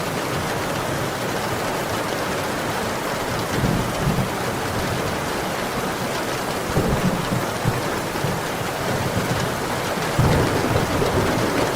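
Steady heavy rain, a dense even hiss, with low rumbling swells a few times, the strongest near the end.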